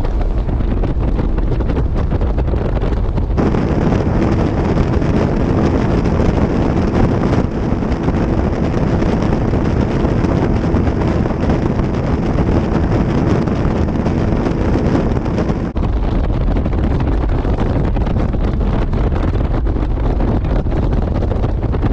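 A 2002 Fountain 35 Lightning powerboat running at top speed, about 82–83 mph: the engines drone under heavy wind buffeting on the microphone and the rush of water. The sound changes abruptly about three seconds in, to engine and spray from the stern with the big rooster-tail wake, and changes back near sixteen seconds.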